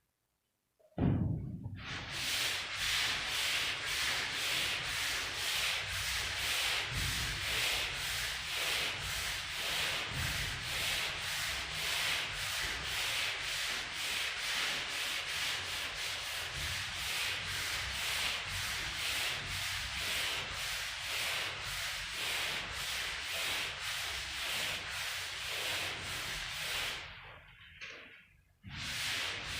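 Hand sanding of dried joint compound on a gypsum-board ceiling, sandpaper on a sanding block: steady scratchy back-and-forth strokes, about two a second, with a short pause near the end.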